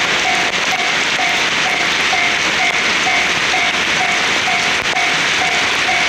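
Railway level-crossing alarm ringing steadily at about two dings a second, over the loud hiss of heavy rain.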